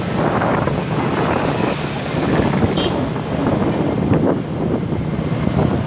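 Road traffic rumbling steadily, with wind buffeting the microphone.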